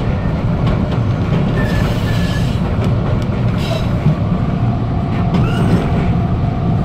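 Toronto subway train running on open track: a steady low rumble, with clicks of the wheels over rail joints and switches and a few brief high squeals about two seconds in and again near the end.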